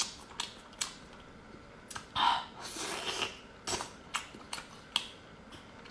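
Close-up eating sounds of a person eating brown crab: chewing and mouth smacks with several short sharp clicks, and a louder stretch of eating noise about two to three seconds in.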